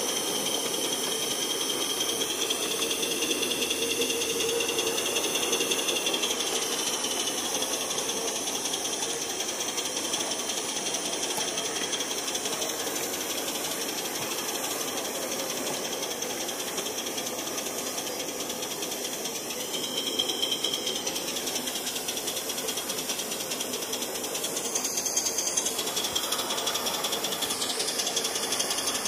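LBSC 2.5-inch gauge Ayesha live-steam locomotive running along a miniature railway track: a steady hiss of steam over the rattle of the wheels on the rails.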